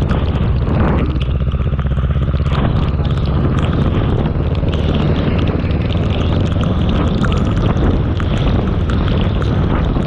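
Motorcycle engine running steadily while riding, with wind buffeting the microphone.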